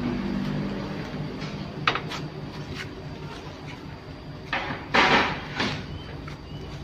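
Large ceramic floor tiles being handled: a sharp knock about two seconds in, then a louder scraping clatter about five seconds in, over a low steady hum.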